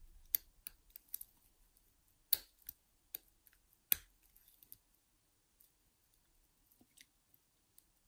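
Lock pick and tension wrench working the pins in the keyway of an all-brass padlock: scattered small metallic clicks, a few sharper ones about two and four seconds in.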